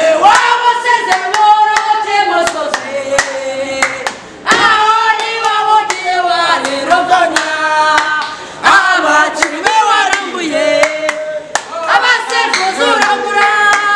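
A man and a woman chanting a football fan song together, with sharp hand claps.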